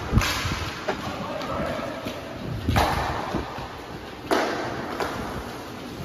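Three sudden thumps, the first near the start, then about 2.8 and 4.3 seconds in, each trailing off as a noisy decay over about a second.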